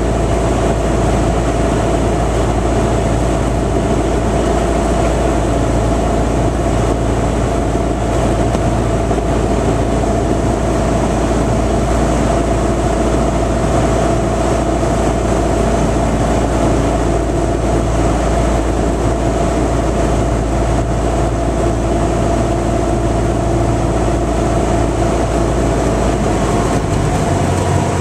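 Cessna 172 Skyhawk's piston engine and propeller droning steadily, heard inside the cockpit. The tone of the drone shifts slightly near the end.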